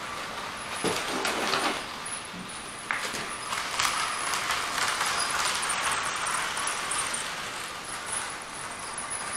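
Model train running on its track: a steady rattling whir of wheels and motor, with a few clicks along the way.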